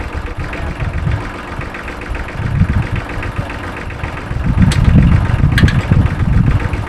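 Tractor engine idling steadily, with two short metallic clicks about five seconds in.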